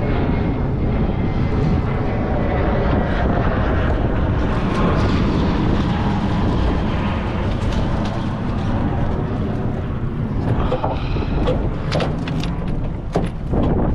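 Steady, heavy wind rumble on the microphone over choppy water. In the last few seconds there is a run of sharp clicks and knocks as the landing net holding a halibut is hauled aboard.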